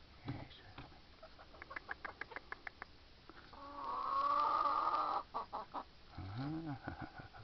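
Hens in a coop clucking, with quick runs of soft ticks. About halfway through, one hen gives a loud, drawn-out call lasting over a second, and near the end there is a short, low call that rises and falls.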